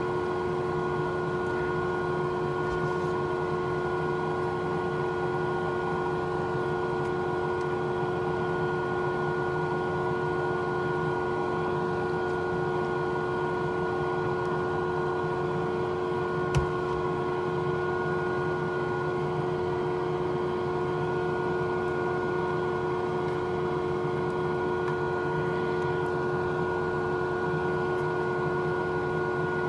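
Steady hum of a small motor or fan running, holding several fixed tones with no change in speed, and a single sharp click a little past the middle.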